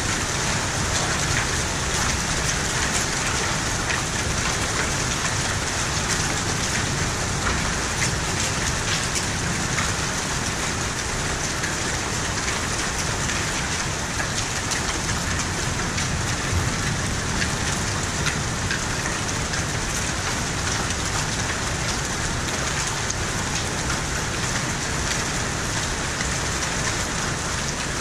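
Hailstorm with heavy rain: a steady, dense hiss of falling precipitation, peppered with many sharp ticks of hailstones striking hard surfaces.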